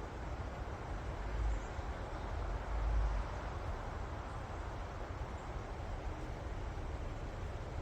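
Wind moving through forest trees, a steady rustle of leaves, with a low rumble that swells twice, about one and a half and three seconds in, as gusts come through.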